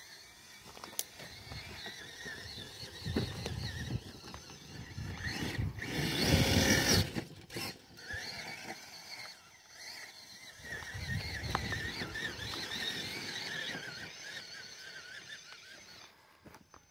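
Traxxas TRX-4 Bronco RC crawler's electric motor and gearbox whining, rising and falling with the throttle as it crawls over loose dirt, with louder surges about three, six and eleven seconds in, the one around six seconds the loudest.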